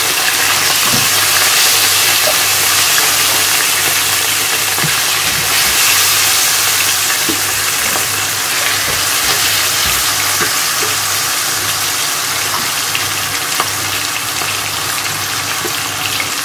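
Chicken pieces sizzling steadily as they brown in hot oil in a frying pan, with a few faint clicks scattered through.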